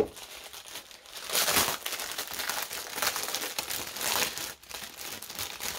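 A sharp knock, then plastic packaging crinkling and rustling in uneven swells as it is handled: the clear film and bags of a diamond painting kit.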